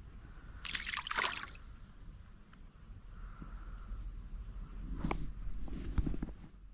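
A short splash of water about a second in, over a steady drone of insects, with a few soft knocks and thuds near the end.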